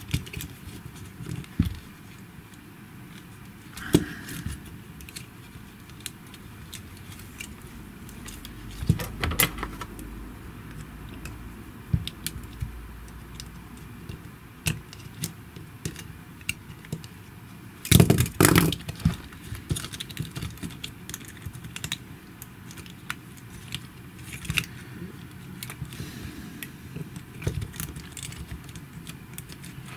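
Small plastic and metal parts of a GHD Platinum hair straightener being handled and pressed together: scattered light clicks and rattles, with a sharp click about four seconds in and a louder burst of knocks and rattling about two-thirds of the way through.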